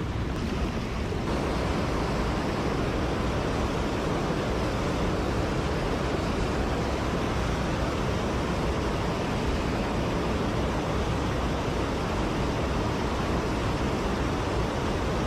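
Mountain stream water rushing: a steady, dense noise that grows a little fuller about a second in.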